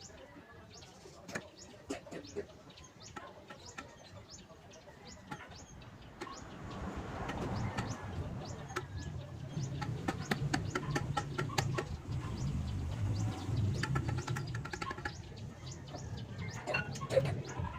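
Birds calling, like barnyard fowl clucking, over scattered sharp clicks and light knocks. A low steady hum comes in about six seconds in.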